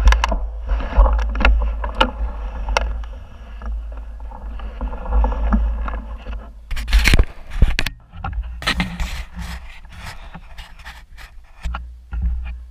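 Mountain bike rolling fast down a loose gravel trail: knobby tyres crunching and scraping over stones while the bike rattles and clicks over bumps, under a steady low rumble of wind buffeting the mounted camera's microphone. The harshest bursts of crunching and knocking come about 7 s in and again around 9 s.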